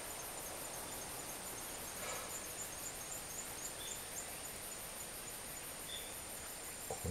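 Woodland insects trilling steadily and high, with a fast pulsing call in the first half that fades out. Short high chirps come about four and six seconds in.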